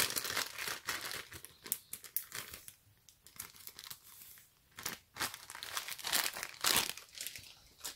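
Clear plastic zip-top bag crinkling as it is handled and pressed, with a lot of bracelets shifting inside. Irregular crackles, quieter for a moment about three seconds in, then picking up again, with a sharp loud crackle near the end.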